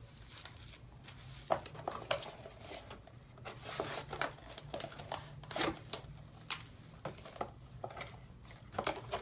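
Plastic toy pieces and packaging being handled and unpacked: scattered light clicks and knocks with bursts of crinkling rustle.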